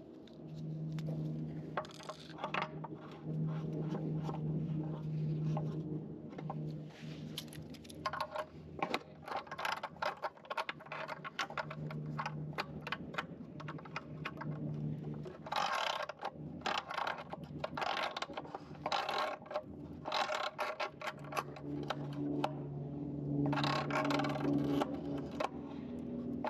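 Metal parts and hand tools clinking, knocking and scraping in irregular bursts as a pool heater is worked on, with a low steady hum that comes and goes.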